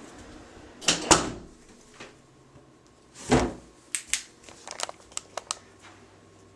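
Handling noises: a couple of loud bumps about a second in and again after three seconds, then a quick run of small sharp clicks.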